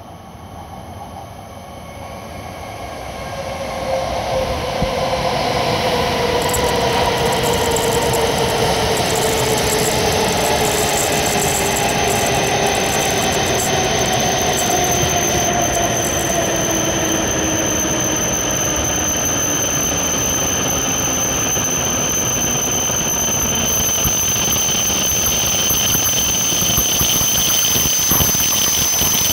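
W7 series Shinkansen train pulling in and braking: its running noise swells over the first few seconds as it comes alongside. Then a whine falls steadily in pitch for many seconds as the train slows, with a high steady squeal above it.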